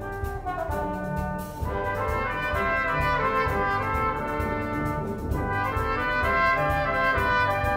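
Full brass band of cornets, horns, trombones and tubas playing over a regular low pulse. The band swells louder about one and a half seconds in.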